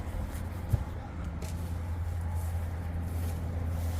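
Engine idling with a steady low hum, and a single short knock about three-quarters of a second in.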